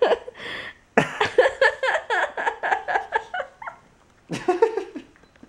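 A woman laughing hard and helplessly, a long run of quick breathy bursts of laughter, then a second shorter burst near the end.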